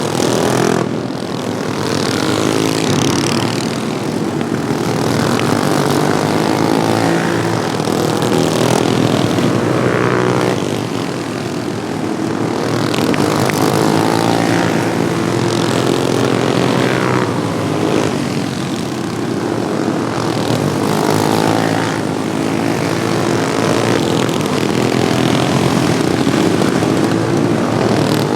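Several modified Wheel Horse lawn tractors racing, their small engines running hard, with the pitch swelling and falling again and again as machines pass by.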